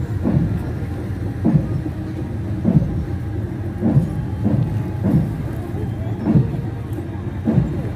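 Military Humvees driving past at parade pace, their diesel engines running steadily, with a regular pulse about once every second.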